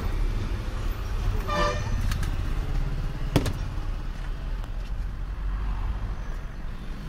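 Road traffic with a steady low rumble and a vehicle horn honking briefly about one and a half seconds in. A single sharp click comes about halfway through.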